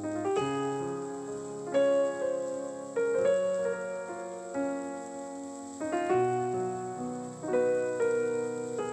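Background piano music: sustained chords, with a new chord struck about every second and a half.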